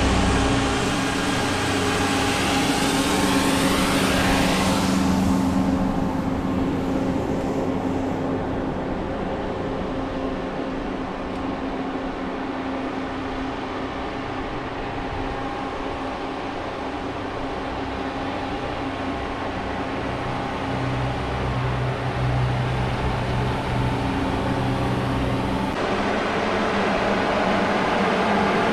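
Motor vehicle driving: a steady engine hum with road noise, with a sweeping whoosh in the first few seconds.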